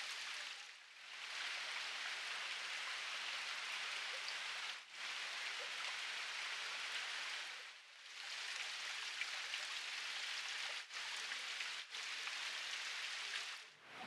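Steady hiss of falling water at Nachi Falls, dipping briefly a few times.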